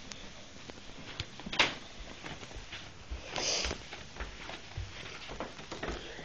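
A small red-eared slider turtle's claws clicking and tapping irregularly as it walks on a hard floor, with one louder click about a second and a half in and a brief scraping rustle about three and a half seconds in.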